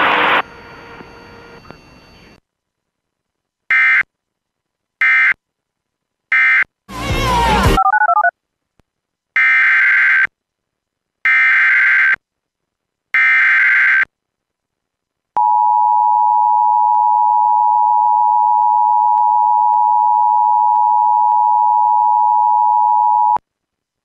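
Emergency Alert System tones relayed over FM radio. It opens with three short bursts of the previous alert's end-of-message data code and a brief noisy sweep with a falling pitch. Then come three bursts of about a second each of the warbling digital SAME header for a severe thunderstorm warning. Last is the steady EAS two-tone attention signal, held for about eight seconds before cutting off.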